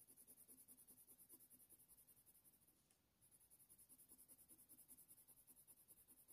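Faint scratching of a Faber-Castell Polychromos coloured pencil on hot press watercolour paper, laid down in quick short strokes, several a second, with a pause of about a second near the middle.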